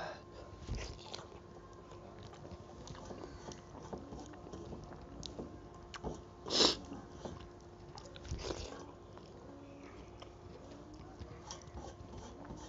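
Close-miked eating by hand: chewing and small wet mouth clicks, with fingers gathering rice on a metal plate. Two short, louder noisy sounds stand out, about six and a half and eight and a half seconds in, over a faint steady hum.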